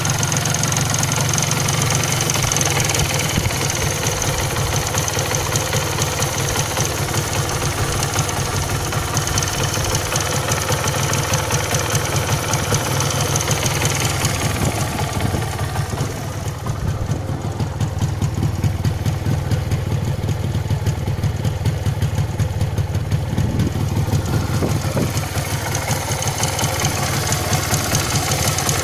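MZ ETZ 250's single-cylinder two-stroke engine idling steadily, turning duller for several seconds midway.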